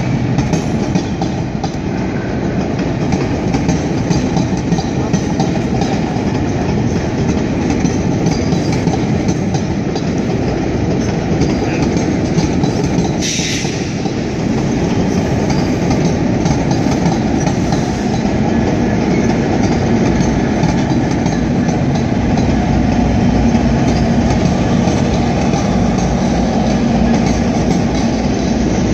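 GO Transit bilevel commuter train passing at close range, its wheels clattering over the rail joints and switches. In the second half a low drone grows louder as the EMD F59PH diesel locomotive pushing at the rear draws near.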